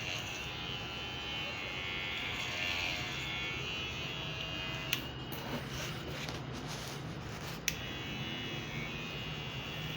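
Electric hair clipper running with a steady buzz, fitted with a freshly sharpened blade. Two sharp clicks come about halfway through and again near the end.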